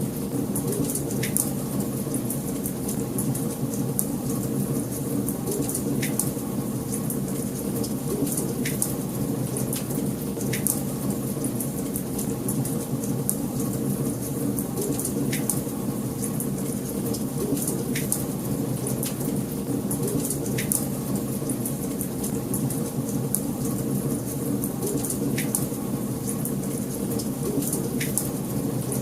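Wood fire burning in a fireplace: a steady low rush of flames with a constant fine crackle, and a sharper pop every two to three seconds.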